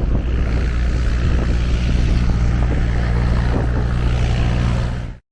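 Piston-engined propeller aircraft running: a loud, steady low drone that cuts off suddenly near the end.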